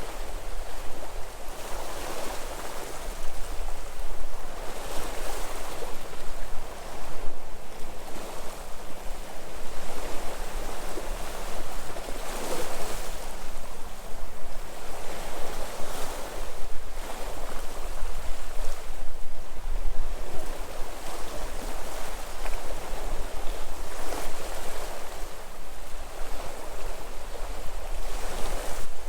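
Sea waves breaking and washing onto the shore, surging every few seconds over a steady low rumble.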